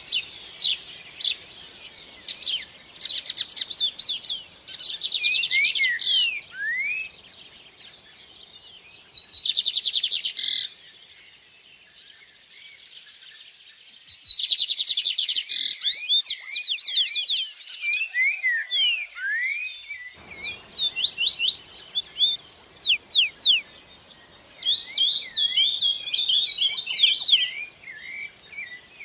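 Several songbirds singing and chirping in quick, overlapping phrases of trills, rapid chirp series and downward-sweeping whistles. A faint stream rushing sits underneath, dropping out for several seconds midway.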